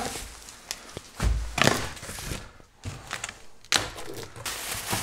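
A large cardboard box being turned over and set down on a workbench with a dull thud about a second in, a few knocks of cardboard on the bench, then from about four seconds in a scratchy rustle as a blade slits the packing tape.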